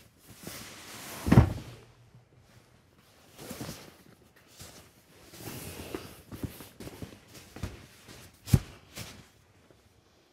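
Handling noise of RV seat cushions being lifted and moved: rustling, scattered knocks and footsteps on a hard floor, with two loud thumps, about a second and a half in and again near the end.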